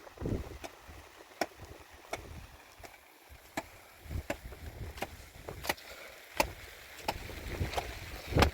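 A series of sharp knocks at an uneven pace, roughly one a second, with the loudest near the end, over a low rumble.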